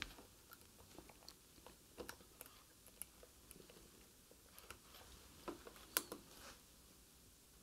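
Faint scattered clicks and handling noise as a transistor is fitted into a transistor tester's ZIF socket and the tester's push-button is pressed; the strongest clicks come about two thirds of the way through.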